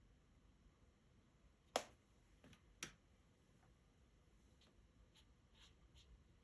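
Near silence broken by two sharp light taps about a second apart, followed by a few faint ticks.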